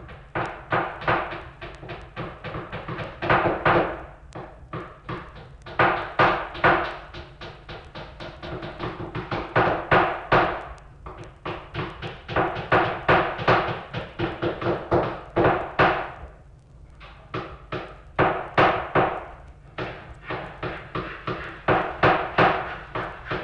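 Rapid runs of sharp percussive strikes, several a second, coming in bursts of a few seconds with short pauses between them, over a low steady hum.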